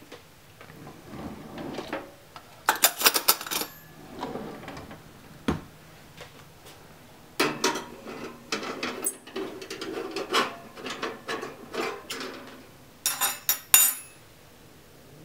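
Metal clinking and rattling in three bursts, about three seconds in, about eight seconds in and near the end, with softer rustling and knocking between.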